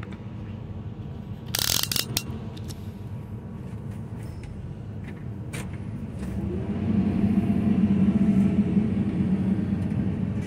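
Heavy excavator's diesel engine running with its hydraulics working a demolition shear. About six seconds in the engine takes on load and grows louder and deeper as the shear jaws close on a steel ATM. A short, loud scraping rustle comes about a second and a half in.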